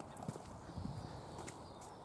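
Footsteps on a hard, bare dirt bank: a few short, uneven steps.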